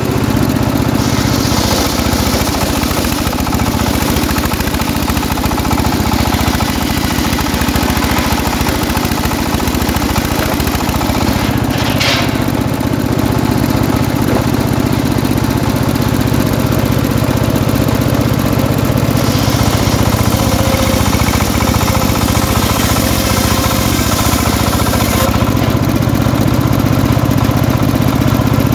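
Engine-driven homemade circular saw bench running steadily while its large blade rips a log lengthwise. A higher cutting hiss rides over the engine note, easing off for a few seconds about two-thirds of the way through and then returning. There is one brief sharp crack about twelve seconds in.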